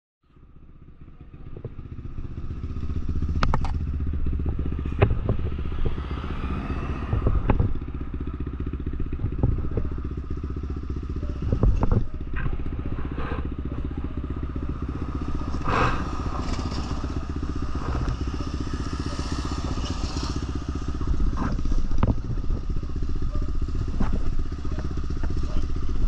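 Lexmoto LXR 125 motorcycle's 125cc engine running through an aftermarket Black Widow exhaust. The steady sound fades in over the first few seconds, with a few sharp clicks and knocks along the way.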